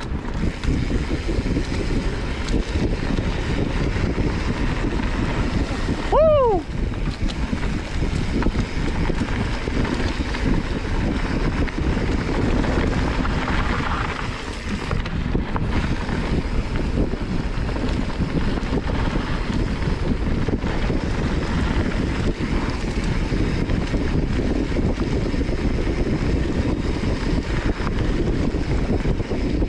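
Wind rushing over a GoPro's microphone and mountain bike tyres rumbling on dry, loose trail dirt while riding. About six seconds in comes a short squeal that falls in pitch.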